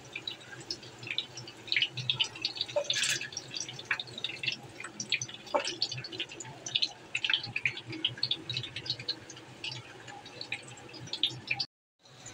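Kebabs shallow-frying in hot oil in a nonstick pan: continuous irregular crackling and spitting of the oil, with a few louder pops. The sound cuts out for a moment near the end.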